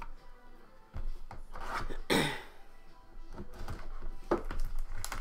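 Hands handling a shrink-wrapped trading-card box, rubbing and sliding it across the table, with a louder swish about two seconds in.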